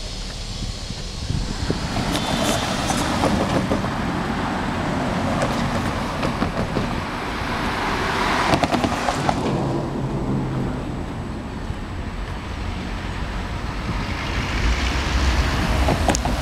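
Road traffic: cars passing one after another on a street, each rising and fading, over a low rumble.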